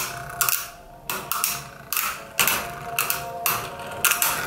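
Two Beyblade Burst tops, Evipero and Horusood H1, spinning together in a plastic Beyblade stadium and clashing again and again, sharp clicks about twice a second over a steady whir.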